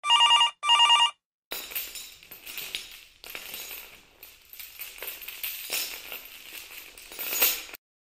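A telephone rings twice in quick succession. Then heavy metal chain rattles and clanks in an irregular jangle for about six seconds.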